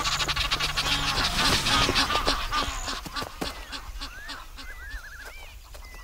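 Egyptian geese honking in alarm: repeated harsh, arched calls through the whole stretch, with a dense rapid fluttering over the first half that then dies away.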